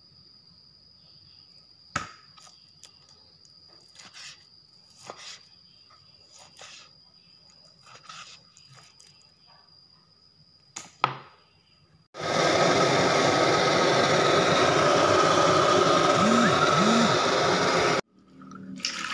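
A knife cutting raw beef on a cutting board: soft, scattered cuts about once a second over a faint steady high whine. About twelve seconds in, a loud steady rushing noise starts abruptly and stops just as suddenly about six seconds later.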